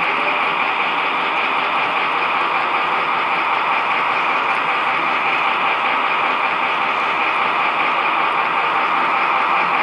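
Steady whirring, rolling noise of a model train running along the track, picked up by a camera riding on the train itself.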